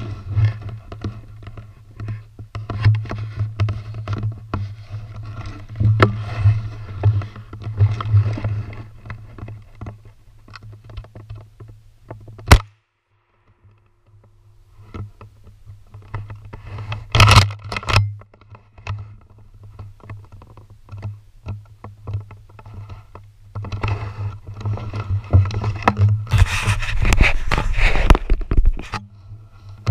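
Scraping and rustling handling noise on the camera as it is carried through snowy woods, with a sharp click about twelve seconds in followed by a brief dropout, and louder scraping bouts later on.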